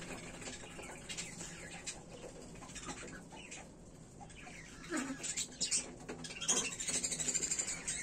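Budgerigars chirping and chattering, with a quick run of short high chirps starting about halfway through.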